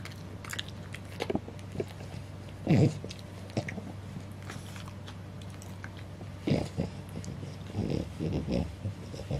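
French bulldog licking and snuffling with its nose in a quilt after a dog chew: wet mouth clicks and smacks, with a few louder snorting breaths about three seconds in and again near the end.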